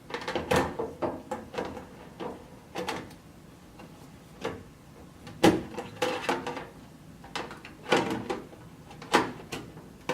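A sheet-metal computer case side panel being handled and fitted, with irregular knocks, clatters and short sliding scrapes that ring a little.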